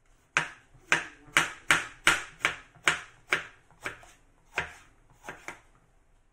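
Kitchen knife chopping a head of iceberg lettuce on a plastic cutting board: about a dozen sharp knocks of the blade through the leaves onto the board, roughly two a second, growing softer toward the end.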